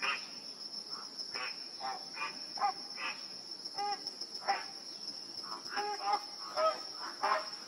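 A flock of flamingos honking: short, goose-like calls coming irregularly, often several close together, over a steady high-pitched buzz of insects.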